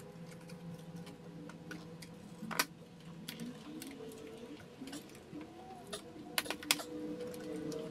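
Plastic clicks and snaps from the air filter housing's lid and clips being pressed and latched shut by hand. One sharp snap comes about two and a half seconds in, and a quick cluster of snaps comes near the end.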